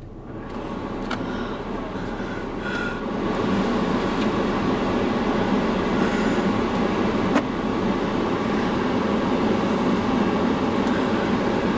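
Car air-conditioning fan blowing hard inside the cabin, a steady rushing noise that builds over the first few seconds and then holds level.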